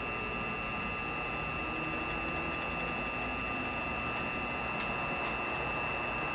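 Wood lathe running steadily with a constant high motor whine as it turns a pen blank, with a couple of faint ticks about five seconds in.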